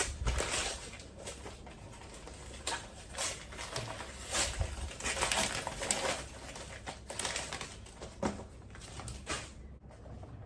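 Toy box and plastic packaging being opened and handled by hand: irregular rustles, clicks and taps of cardboard and plastic.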